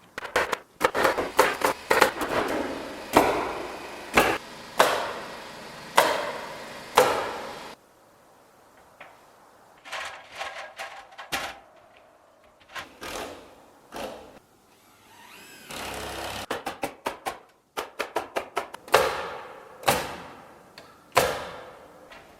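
Nails being driven into wall sheathing: a series of sharp, ringing knocks, the loud ones about a second apart, with a quick burst of about ten knocks in under two seconds near the end.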